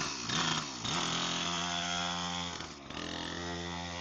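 Mini moto dirt bike's small engine revving: its pitch dips and rises twice in the first second, then holds steady, with a brief drop in revs just before three seconds.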